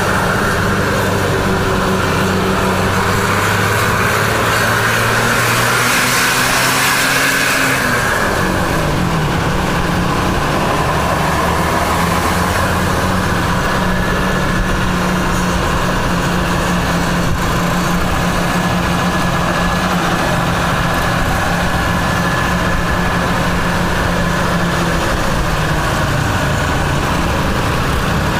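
Tour bus's diesel engine pulling up a steep hill, heard from close behind. Its pitch rises for a few seconds, then drops suddenly about eight seconds in and runs steady after, with a hiss over it just before the drop.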